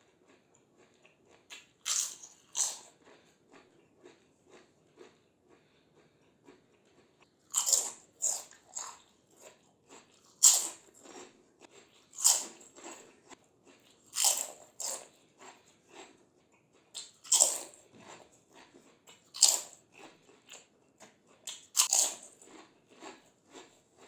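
Close-miked bites into crisp fried Indian snacks: about ten loud crunches spaced a second or two apart, with a quieter crackling chew between bites.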